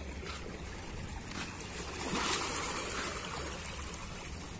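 Small sea waves lapping and washing against shoreline rocks, with a louder wash about two seconds in, over a steady low rumble.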